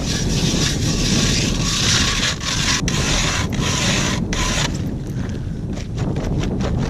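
Hand-cranked ice auger cutting into ice: a steady scraping grind that drops off about two-thirds of the way through. Underneath is a low rumble of wind buffeting a GoPro microphone that has wind reduction switched off (stereo mode).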